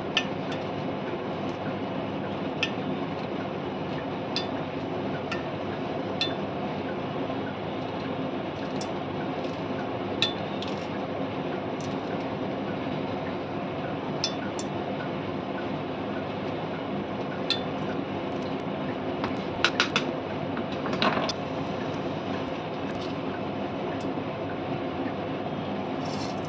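A steady hum runs under the kitchen, with scattered light metallic clinks and ticks from the pan and utensils, and a quick run of clicks about twenty seconds in.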